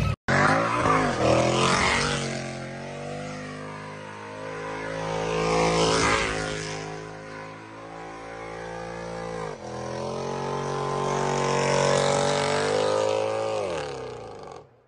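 Mercedes-AMG car's engine revving high while it spins its tyres doing donuts. The revs sag and climb again several times, with a hiss from the spinning tyres over the engine note.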